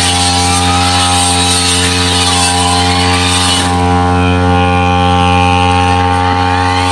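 Petrol brush cutter engine running steadily at high speed while cutting wet, tall grass.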